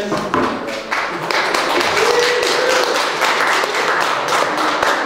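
Audience applauding, the clapping building about a second in and holding steady.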